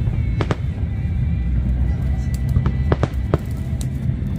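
Fireworks bursting over a continuous low rumble, with music playing: a quick pair of sharp cracks about half a second in and three more around the three-second mark.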